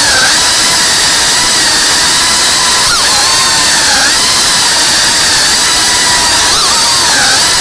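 3.5-inch cinewhoop FPV drone's brushless motors and propellers whining loudly and steadily, close up from the drone's own camera, the pitch dipping and swinging back a few times as the throttle changes.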